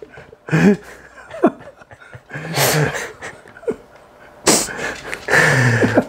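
Two men laughing in breathy, irregular bursts, the loudest stretch starting about four and a half seconds in.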